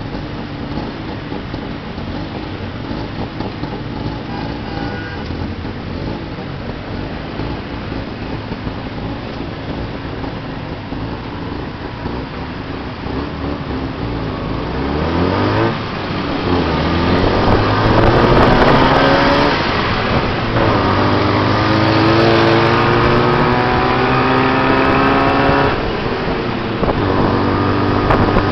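Tuk tuk engine heard from the open passenger seat over road and traffic noise: running low in slow traffic for the first half, then accelerating from about halfway, its pitch climbing through the gears, dropping at a shift near the end and climbing again.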